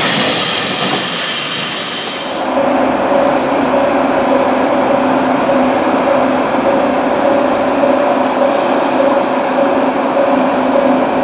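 Container freight wagons rolling past on steel rails, the wheel and rail noise fading a little. About two seconds in it cuts off abruptly to a steady hum with two held low tones.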